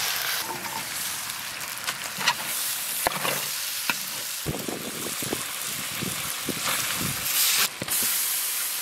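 Diced pork belly sizzling in a large wok, stir-fried with a metal spatula that scrapes and clinks against the pan again and again over a steady hiss.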